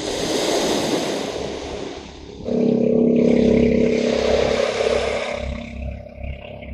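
Small waves washing on a sand beach, then from about two and a half seconds in a steady, even-pitched engine drone, typical of a motorboat out on the water.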